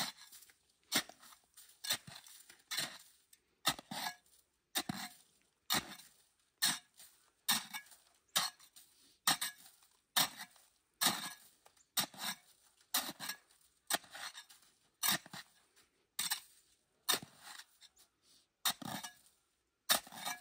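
A long-handled hand tool chopping into packed snow, hacking out the inside of an igloo mound: a steady run of strikes, about one a second, each with a short crunch or scrape of snow.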